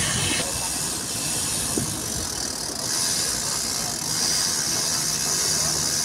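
Steady seaside ambience: an even hiss of wind and shallow harbour water, with no distinct events standing out.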